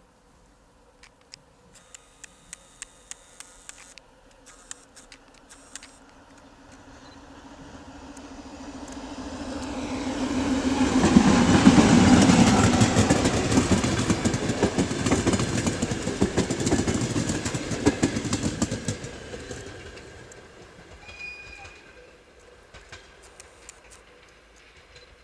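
A ChME3 diesel shunting locomotive with a passenger coach approaches, passes close by and draws away. The engine's steady drone builds as it nears. Around twelve seconds in the wheels clatter loudly over the rail joints as the locomotive and coach go by, then the sound fades away.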